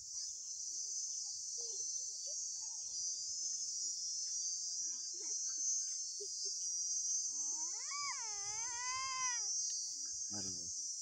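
Steady, high-pitched chorus of insects. About seven seconds in, a wavering, drawn-out call rises and falls in pitch for about two seconds.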